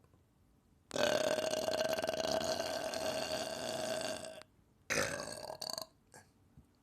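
A person belching: one long burp of about three and a half seconds at a steady pitch, starting about a second in, then a shorter burp shortly after.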